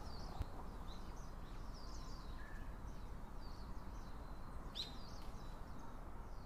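Birds chirping over a steady outdoor hiss: many short high chirps throughout, with one sharper call about five seconds in.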